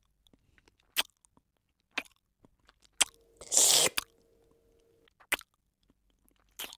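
Eating sounds of a person eating an ice cream cone: short sharp mouth clicks about once a second, and a longer crunchy burst about halfway through.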